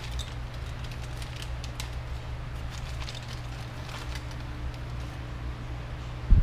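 Light clicks and rustling from small parts being handled on a workbench, over a steady low hum, with a thump near the end.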